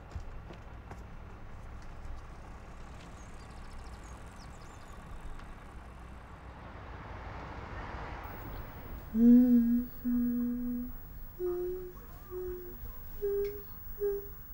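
A low, steady background rumble that swells slightly around eight seconds in. About nine seconds in, a person starts humming a slow tune in separate held notes: two longer low notes, then several shorter, slightly higher ones.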